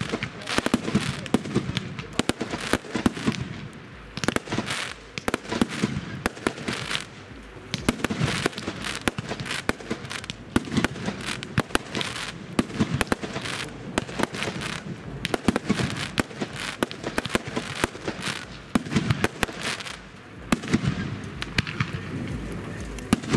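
Fireworks display: a dense run of sharp bangs and pops in quick, irregular succession.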